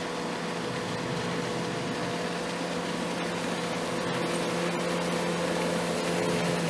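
Motorboat engine running steadily at low speed over a steady hiss, growing a little louder toward the end.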